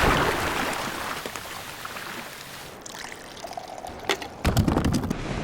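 Ocean surf washing in with a loud rush of water that slowly dies away, followed by a few sharp knocks about four seconds in.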